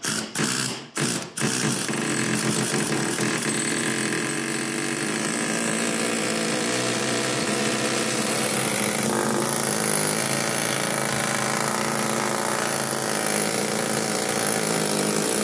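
Pneumatic air hammer with a round peening bit hammering the sheet-steel firewall, denting it in to make clearance for the engine's cam angle sensor. A few short bursts in the first second and a half, then it runs continuously.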